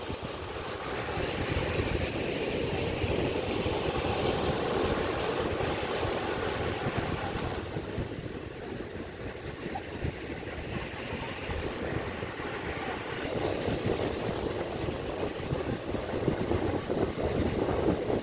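Sea waves breaking and washing up on a sandy shore, with wind rumbling on the microphone. The surf swells and eases, growing louder near the end.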